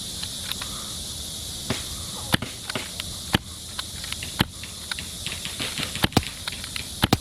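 Steady high-pitched chirring of insects, with a scatter of sharp clicks and snaps, the loudest about once a second in the second half.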